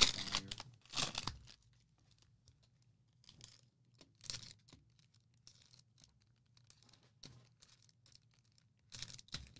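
Cellophane wrappers of football card cello packs being torn open and crinkled by hand. There is a loud rip at the start and another about a second in, then faint scattered rustles and a short burst of crinkling near the end.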